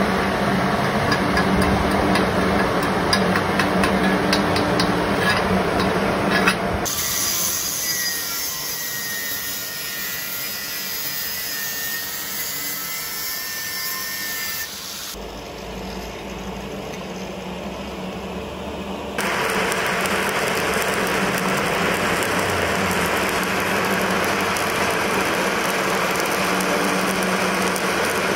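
Welding-shop work in several cut segments. A loud stretch of noise ends abruptly about a quarter of the way in. Then an angle grinder grinds steel with a thin whine. From about two-thirds in, a stick-welding arc burns steadily on a 7018 electrode.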